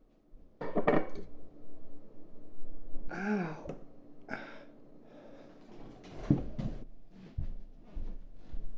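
A man gasping and groaning: a sharp breathy gasp about a second in, a short groan that rises and falls in pitch around three seconds, and another sharp exhale just after. A few knocks and shuffling footsteps follow near the end.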